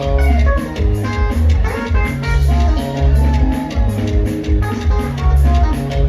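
Upbeat dance music with a heavy, pulsing bass and a steady beat.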